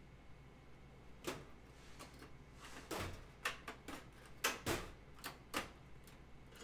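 Rummaging through a workshop work box: a run of about eight irregular knocks and clicks as objects are shifted and set down, the loudest in the middle.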